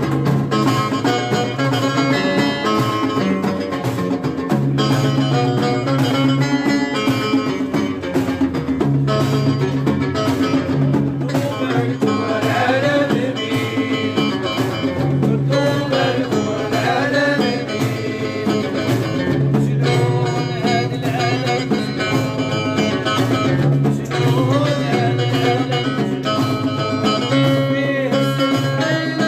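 Live music with plucked string instruments playing over a repeating low bass pattern, with a wavering melodic line above it in the middle.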